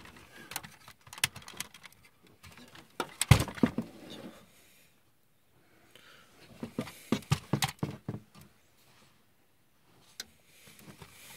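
Hard plastic parts of a DX Great Sungard combining robot toy clicking and knocking as it is handled and turned. There is a loud clatter about three seconds in and a run of small clicks around seven seconds.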